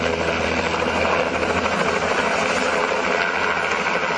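Bell 206 JetRanger-type light turbine helicopter running close by: a steady mix of engine and rotor noise with no breaks or impacts.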